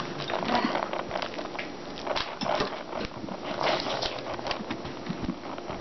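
Hand scooping the stringy pulp and seeds out of a pumpkin: a continuous run of irregular squishing and scraping sounds.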